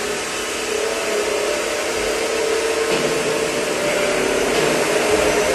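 CNC bending machine running, a steady motor hum with a held whine, the sound shifting slightly about three seconds in.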